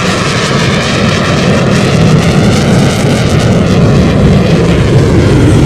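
A JF-17 Thunder fighter's single jet engine roaring loud and steady through an airshow flypast, with slowly sweeping tones as the jet moves past.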